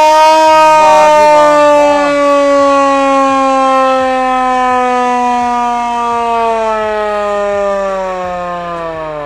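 Hand-cranked manual siren wailing loudly after being cranked only a little, its pitch falling slowly and steadily as the rotor winds down, fading near the end.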